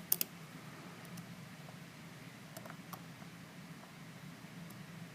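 Faint, scattered clicks of a lock pick and tension wrench working in the keyway of a plastic-bodied Master Lock 410 lockout padlock, over a low steady hum.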